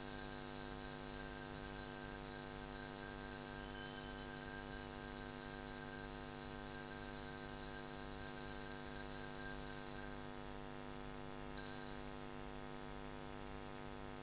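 Altar bell ringing steadily for about ten seconds for the elevation of the host at the consecration, then once more briefly near the end. A low electrical hum from the church sound system runs under it.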